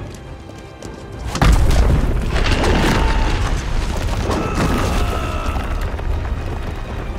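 A deep cinematic boom about a second and a half in, then a sustained low rumble under the film score.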